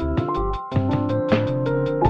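Background music with a steady beat: held keyboard-like notes over regular percussion and a bass line.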